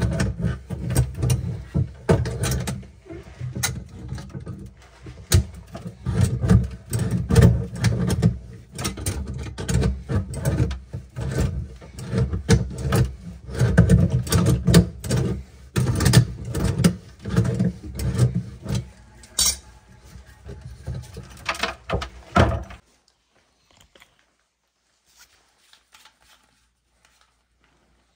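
Tongue-and-groove pliers gripping and working the old brass pop-up drain body: a dense run of metallic clicks, scrapes and knocks that stops abruptly a little over 20 seconds in.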